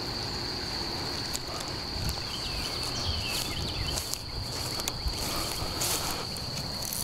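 Insects trilling in one steady, high-pitched note, with scattered soft knocks and rustling from someone moving about in grass.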